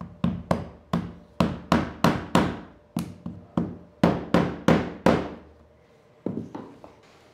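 Rubber mallet knocking a thick hardwood board tight into place on a CNC router's MDF spoilboard: a quick run of about fourteen sharp blows, roughly three a second, then a pause and two or three lighter taps near the end.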